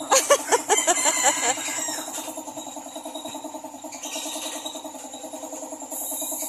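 Compressed-air paint spray gun hissing in bursts, during the first two seconds and again near the end, over a steady pulsing hum.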